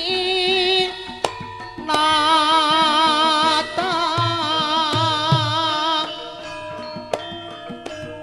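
Javanese gamelan music: a held melody line with a strong waver, over hand-drum strokes. It turns quieter about six seconds in.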